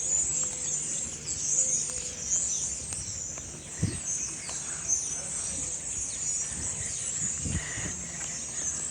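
A large flock of birds chattering, many high chirps overlapping into a continuous din. Two brief low thumps come through, one near the middle and one near the end.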